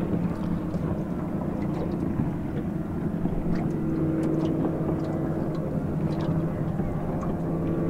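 Engines of high-powered ski-racing speedboats running out on the water, a steady droning hum, with a higher engine tone joining about halfway through.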